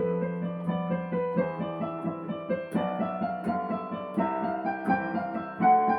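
Background piano music, a steady run of quick notes over a held bass.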